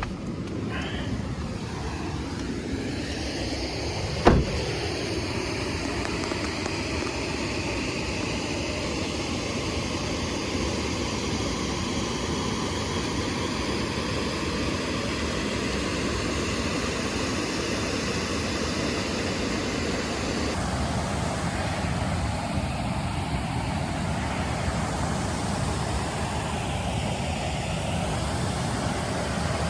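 Steady noise of a car driving along the road, with a single sharp knock about four seconds in.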